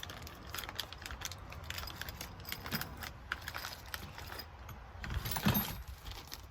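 Copper battery lugs and their plastic package being handled: a run of small clicks and rattles, with a louder clatter about five and a half seconds in.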